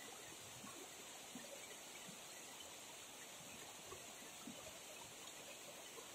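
Shallow mountain stream running over rocks: a steady, faint rushing of water.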